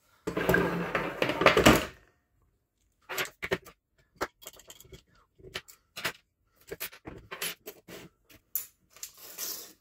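Handling noise from airsoft rifle disassembly on a wooden tabletop: a couple of seconds of rummaging and scraping as a tool is picked up. This is followed by a string of small irregular clicks and taps as a screwdriver works pins out of the plastic lower receiver.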